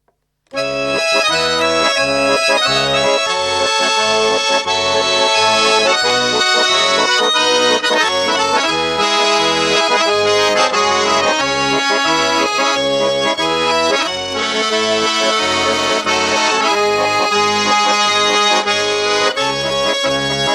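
Instrumental introduction of a song: a sustained melody over a steady, regular bass beat, starting about half a second in.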